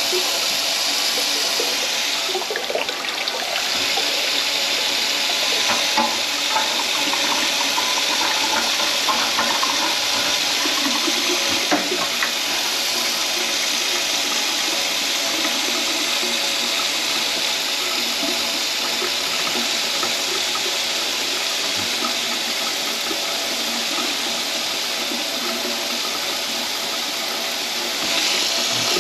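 Kitchen faucet running steadily into a stainless steel sink, the water draining away down the drain.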